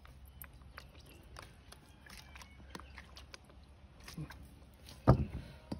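Scattered light clicks and taps of a metal spoon and bottle at a stainless steel mixing bowl, with one loud thump a little after five seconds.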